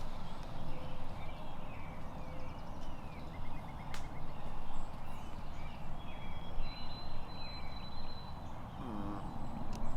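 Woodland ambience: songbirds chirping and whistling over a steady low rumble, with one short, lower-pitched call about nine seconds in.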